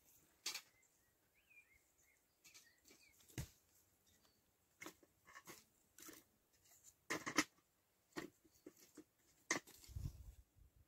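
Dry sticks cracking and knocking as they are snapped and put into a small metal bucket: a scattered series of sharp, separate clicks and cracks over a quiet background. A bird chirps faintly in the first few seconds, and there is a low rustling near the end.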